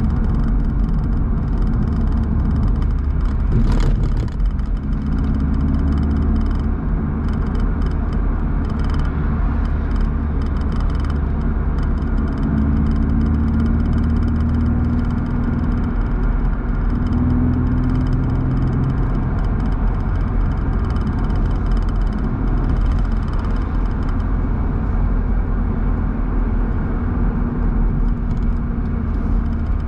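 BMW roadster driving at a steady pace, heard from on board: the engine drones under wind and tyre noise, its note shifting a little as speed changes. There is a short knock about four seconds in.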